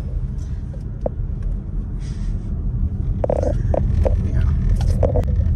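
Low, steady rumble of road and engine noise inside a moving car's cabin. A few short clicks or knocks sound over it, one about a second in and several in the second half.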